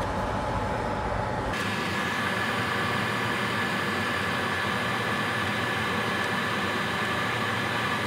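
Steady background hiss with a faint high steady whine, its character changing abruptly about one and a half seconds in; no distinct sound from the soldering itself.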